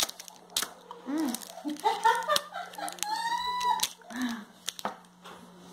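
A girl's voice in short bursts with no clear words, including one long high drawn-out note about three seconds in, over a few sharp clicks and light crinkles from handling a plastic gumball package.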